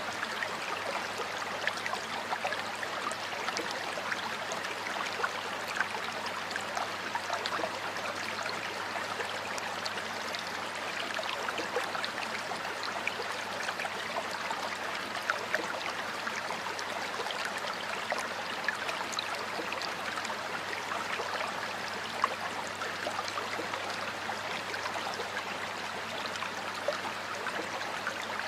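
Stream water flowing and babbling steadily, a constant rushing with many small splashes and gurgles.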